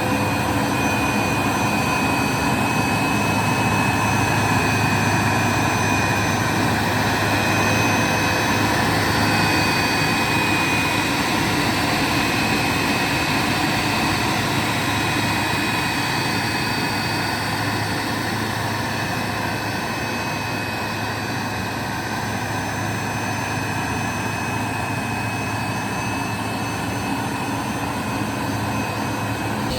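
Hoover SmartWash Pet Complete carpet cleaner running steadily: a constant motor whine with a few steady high tones over an even rushing hiss of suction.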